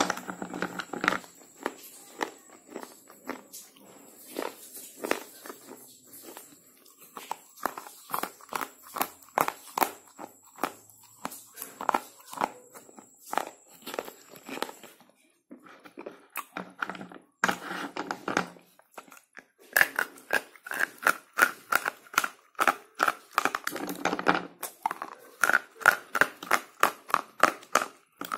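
Slate pencils being bitten and chewed close to the microphone: a long run of dry crunches, several a second, with brief pauses about halfway through.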